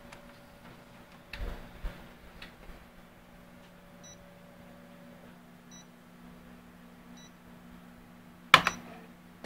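Konica Minolta Bizhub C250 copier running with a steady low hum. There are a few clicks early on, then three short, faint high beeps about a second and a half apart, and one loud clack near the end.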